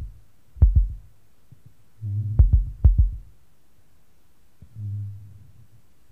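Noise-tape playback: low thuds, each with a sharp click on top, come about a second in and in a tight group of three or four at two to three seconds. A low hum swells under that group and again briefly near five seconds, with quiet between the events.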